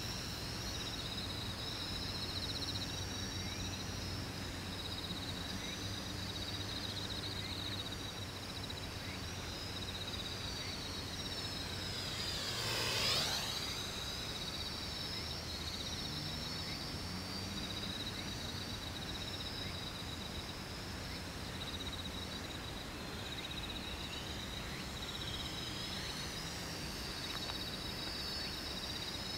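X400 small quadcopter flying, its propellers giving a high whine that wavers up and down in pitch as the throttle changes. About 13 s in, it passes close and briefly grows louder with a sweeping rush. A steady high insect trill runs underneath.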